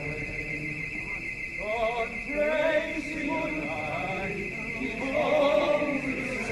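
A voice singing a slow song, its drawn-out notes wavering up and down, loudest about two seconds in and again about five seconds in.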